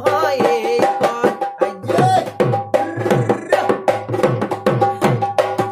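Bihu dhol played with a stick and the bare hand in a quick, regular rhythm, the low head's pitch dropping after each stroke. A male voice sings a short phrase near the start.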